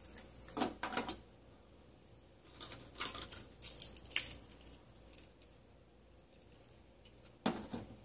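Plastic toy food pieces being handled and set down on a plastic toy kitchen counter: a couple of light knocks about a second in, a spell of scratchy clicking and clattering around three to four seconds, and another knock near the end.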